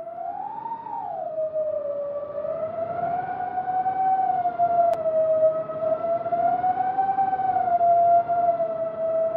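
FPV quadcopter's motors and propellers whining in flight, the pitch swooping up and back down about half a second in and then rising and falling slowly with throttle changes, over a low rushing of prop wash.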